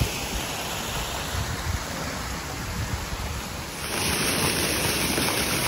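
Small roadside waterfall: a steady rush and splash of falling water, a little louder after about four seconds.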